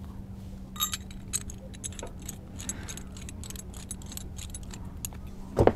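A metal rigging shackle and its screw pin being handled, with small irregular clicks and clinks of metal on metal from about a second in. A short louder sound comes near the end.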